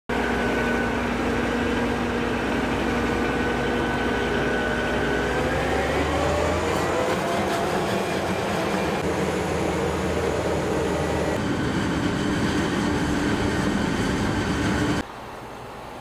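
Self-propelled forage harvester running under load while chopping maize: a steady heavy engine drone with a high whine, its pitch rising about six seconds in. Near the end it cuts suddenly to a quieter tractor engine running.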